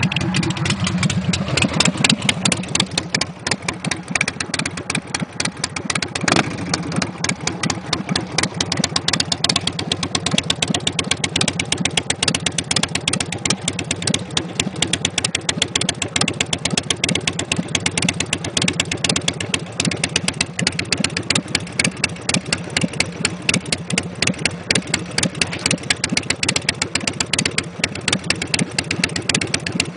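Custom chopper motorcycle's V-twin engine idling with a steady, rapid pulse.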